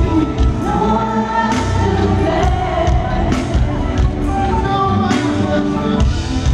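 Live R&B band with a lead singer and several backing vocalists singing together over a steady drum backbeat.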